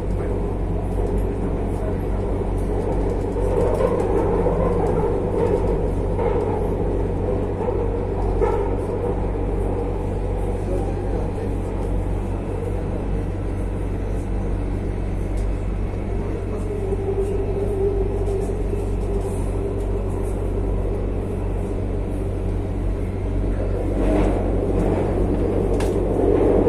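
Madrid Metro Line 6 train 8468 running: a steady low rumble of wheels on rail with a humming tone that swells and fades. It grows louder near the end, with a few sharp clicks.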